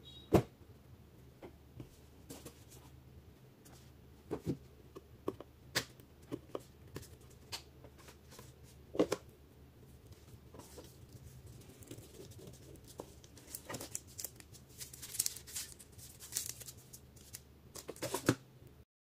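Hands handling a cardboard smartphone box: scattered taps, clicks and knocks as the box is handled and its lid lifted off, then crinkly rustling of the phone's plastic wrap, with a few sharp clicks near the end as the phone is pulled out.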